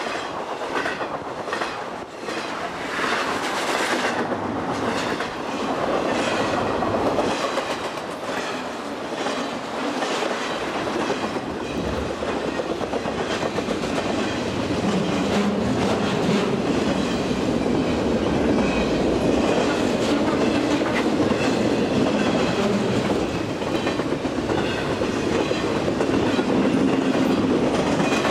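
Intermodal freight train of flatcars loaded with highway trailers rolling past close by, with steady wheel and rail noise and the clickety-clack of wheels over the rail joints.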